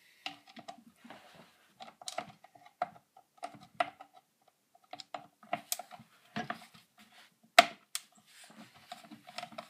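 Irregular clicks and knocks of a screwdriver working screws out of a Poulan 1800 Woodshark chainsaw's plastic housing, with taps of the tool against the saw. A sharp knock about seven and a half seconds in is the loudest.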